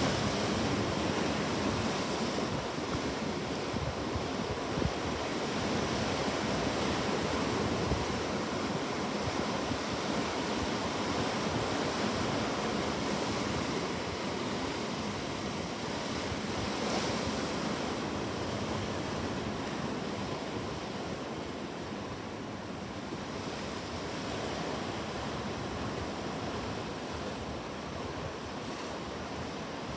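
Ocean waves breaking on a shore in a continuous wash of surf, swelling and easing slowly, with some wind noise.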